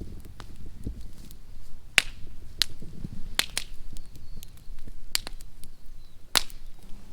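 Bonfire crackling: sharp pops of burning wood, several at irregular intervals, over a low rumble.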